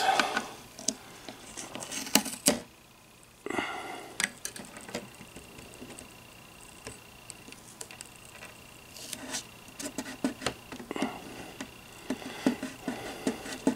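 Scattered light clicks, taps and rustles of hands handling a strip of blue painter's tape at a wooden radio cabinet's dial, over a faint steady high whine.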